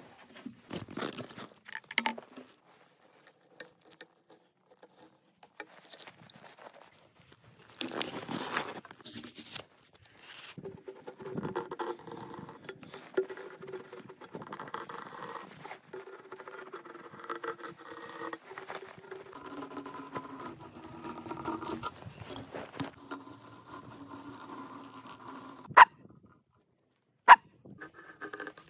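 A knife shaving thin curls off a whole frozen fish, a long run of dry scraping with a squeaky ringing edge. Scattered knocks as the fish is handled, and two sharp, loud clicks near the end.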